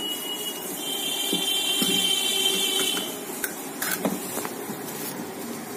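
A high-pitched electronic buzzer tone held for about two seconds, followed by a few sharp clicks.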